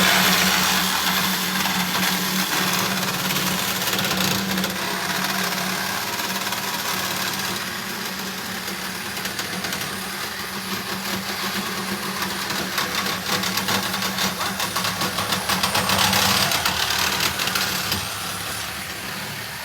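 A power tool running steadily against the metal of an ATM as it is forced open, a constant motor hum with a rapid rattling buzz, louder about three-quarters through and easing off near the end.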